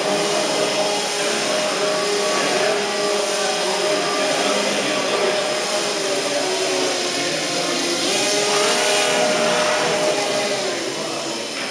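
Small electric motors and propellers of a skirtless radio-controlled hovercraft whining steadily, their pitch wavering as it is driven around, a little louder about eight seconds in as it comes close.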